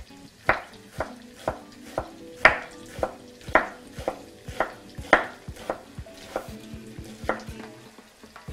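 Chef's knife chopping a red onion on a wooden cutting board: steady, even knocks of the blade on the board, about two a second.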